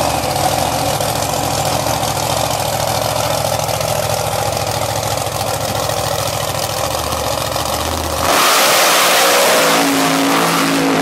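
Mega mud truck engine running steadily. About eight seconds in it switches abruptly to a louder run at high revs as the truck tears through a mud pit, with the engine pitch climbing near the end.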